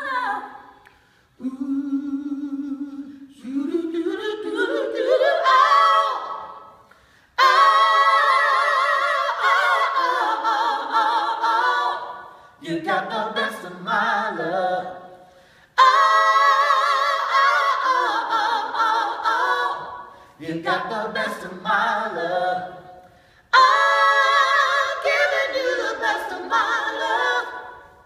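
Three-voice a cappella group, men and a woman, singing in harmony without accompaniment: long held chords with vibrato in phrases a few seconds long, several of them starting suddenly and loud. Early on a low held note is followed by a rising glide.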